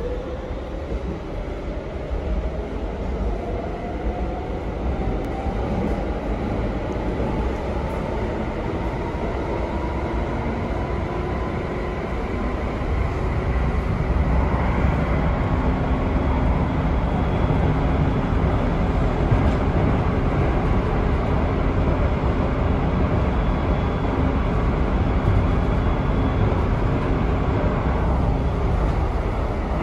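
Driverless electric metro train running through a tunnel, heard from inside the carriage. A motor whine rises in pitch over the first ten seconds or so as the train picks up speed. From about halfway the wheel and rail rumble gets louder and holds steady.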